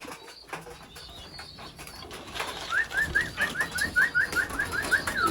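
Racing pigeons in a loft: wings flapping and shuffling, then a quick run of about a dozen short rising peeps, about five a second, starting a little before halfway.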